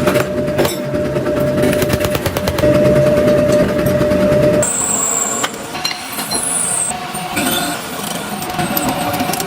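Metalworking machinery running with fast, rapid repeated strikes and a steady hum. About halfway through it changes abruptly to lighter scattered clanks and a high whine.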